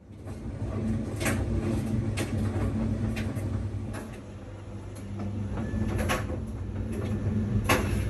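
A chef's knife knocking on a plastic cutting board while cutting garlic cloves, single irregular strikes about a second apart, over a steady low hum.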